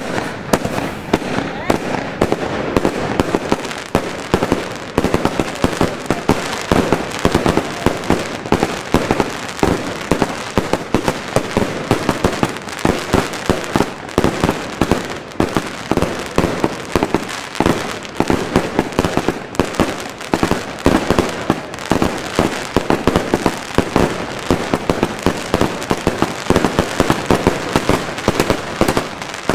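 Two Evolution Snowstorm consumer firework cakes firing together: a rapid, unbroken string of 1.2-inch shots, several launches and bursts a second overlapping one another.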